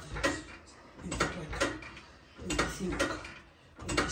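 Plate-loaded leg extension machine clanking in a steady rhythm as it is worked through repetitions: a pair of knocks on each rep, about one rep every second and a half.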